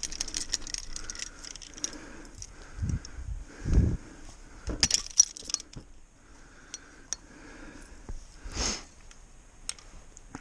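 Light metal jangling and clinking, with several dull thumps between the clinks.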